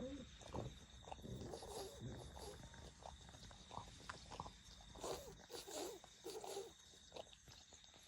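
A sleeping dog snoring softly in short, irregular breaths.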